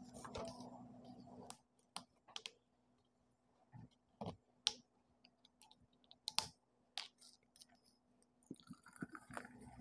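Scattered sharp clicks and light knocks, about half a dozen over several seconds, from objects being handled, with two louder clicks in the middle.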